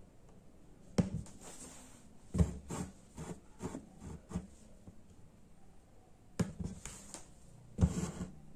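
Hand embroidery: a needle poked through new, tightly hooped fabric and the thread drawn out, giving a series of irregular soft knocks and rubbing scrapes. The loudest come about a second in, around two and a half seconds, and near the end.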